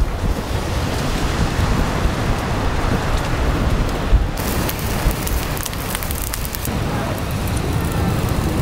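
Meat sizzling and crackling on the wire rack of a small camping grill, with wind buffeting the microphone. The sizzle turns brighter and louder about four seconds in.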